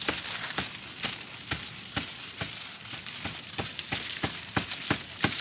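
Dry corn husks and leaves crackling and rustling as corn is handled and picked, with many irregular sharp snaps.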